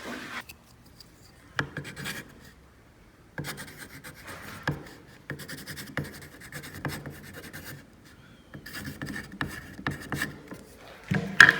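Writing by hand on wood: intermittent scratching strokes with a few light clicks, ending in a louder knock near the end.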